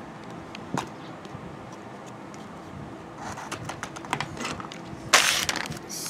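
Crackling and clicking of a clear plastic package being opened to take out a pop-it fidget spinner, with a single click early, scattered crackles from about halfway, and a loud crinkling burst about five seconds in.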